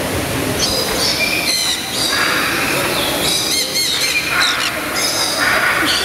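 Parrots screeching: a dense run of shrill, overlapping calls, with a quick series of rising-and-falling chirps near the middle.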